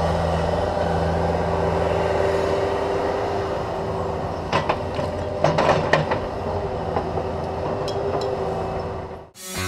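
Cat 305.5E2 mini excavator's diesel engine running steadily while the boom and bucket swing, with a few sharp knocks about four and a half to six seconds in. The sound fades out near the end.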